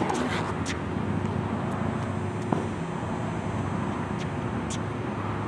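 Steady outdoor background noise of the kind heard near city traffic, with a few faint clicks scattered through it.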